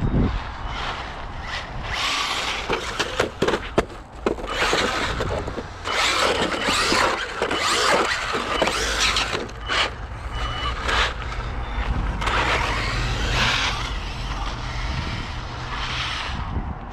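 Traxxas Maxx RC truck's brushless motor whining in repeated throttle surges as the truck drives through snow, with tyre and drivetrain noise rising and falling.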